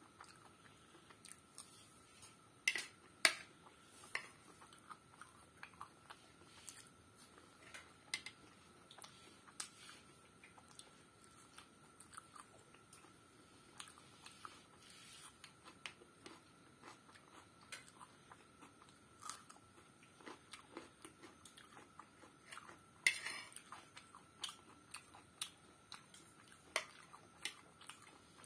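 Close-up chewing of egg macaroni pasta with raw onion and cucumber salad: many small wet mouth clicks and a few louder crunching bites, about three seconds in and again about twenty-three seconds in. A faint steady high whine runs underneath.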